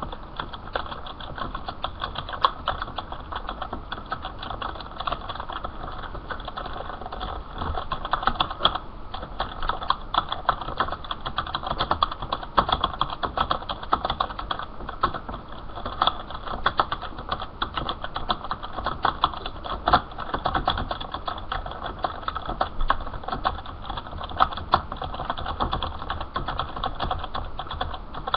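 Rapid, continuous typing on a computer keyboard, a steady patter of key clicks with scattered louder strikes, picked up by a low-quality headset microphone.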